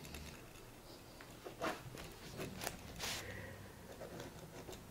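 Faint ticks and rustles of a pen and notebook being handled in a quiet room, with a short breathy hiss about three seconds in.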